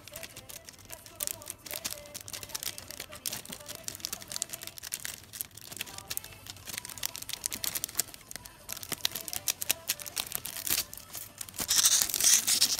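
Clear plastic sleeve crinkling and crackling as it is worked off a CD jewel case, with a louder burst of crinkling near the end.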